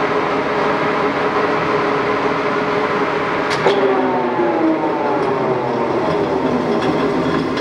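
Heavy-duty LeBlond Regal engine lathe's geared headstock running at 390 RPM with a steady gear hum. About three and a half seconds in, a lever clicks and the pitch falls steadily as the spindle slows down.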